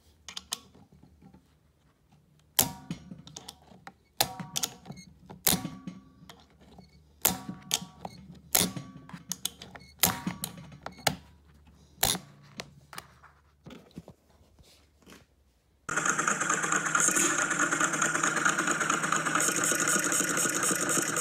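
The igniter and trip finger of a Nelson Brothers hit-and-miss engine being snapped by hand: a series of sharp metallic clicks with a short ring, about one cluster every second or so. About 16 seconds in, a steadily running stationary engine abruptly takes over.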